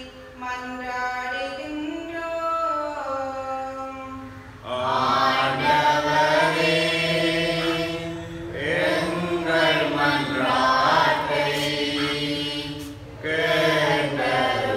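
Liturgical chant: one voice sings a slow, held melodic line, then about five seconds in a choir of voices takes it up, louder and fuller. The choir pauses briefly near the end and comes back in.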